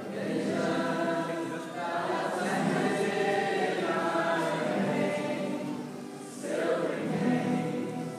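Live ensemble music in a theatre: a large guitar ensemble playing held chords that swell, ease off, then swell again about six and a half seconds in before fading near the end.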